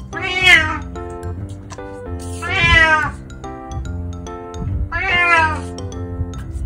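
An elderly calico cat meowing three times, about two and a half seconds apart, each call long and arching in pitch, the middle one the longest. Background music plays underneath.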